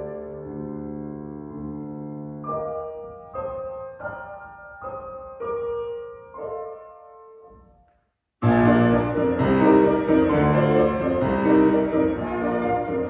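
Grand piano playing alone: held chords, then a slow line of single struck notes that ring and die away, and a brief silence. About two thirds of the way through, the piano comes back in much louder with a busy passage.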